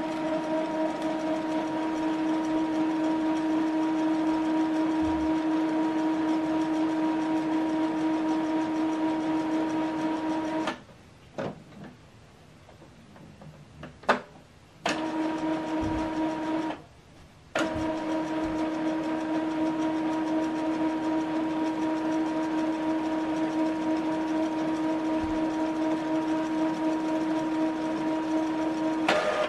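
Epson WorkForce WF-2910 inkjet printer's motor running with a steady whine during its ink-charging maintenance cycle after cartridge replacement. The whine cuts out for about four seconds, with a single sharp click in that gap, drops out again briefly a few seconds later, then runs on.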